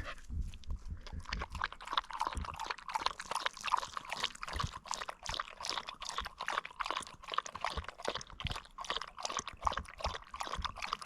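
A dog lapping water from the flip-up cup of a travel dog water bottle: a steady run of quick, wet laps.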